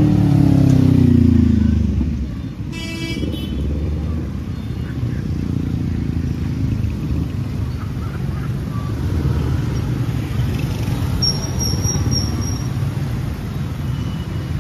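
Street traffic. A motor vehicle passes close at the start, its engine note dropping as it goes. A short horn toot comes about three seconds in, then a steady traffic rumble, with a thin high tone lasting about a second and a half near the end.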